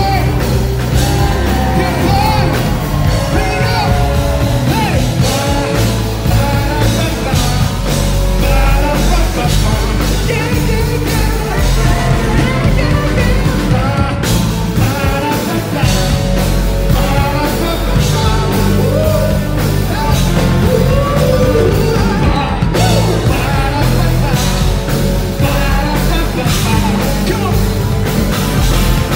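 Live funk-rock band playing loud, with electric guitar, bass guitar and drums under a male lead vocal sung into a microphone.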